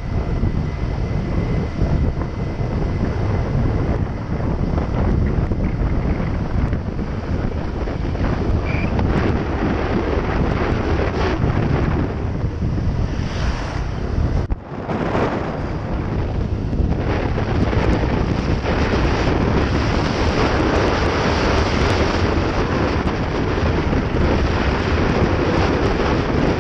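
Wind buffeting the microphone of a camera on a moving Honda PCX 125 scooter, a steady rushing noise with the scooter's engine and road noise underneath. It drops off briefly about halfway through, then picks up again.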